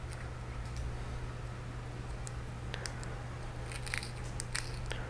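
Light clicks and taps of small differential parts being handled as a gear is worked out of a Traxxas X-Maxx differential: a few scattered clicks, with a short cluster about four seconds in, over a steady low hum.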